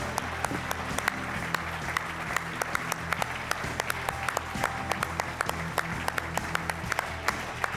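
Audience applauding steadily, with background music under the clapping.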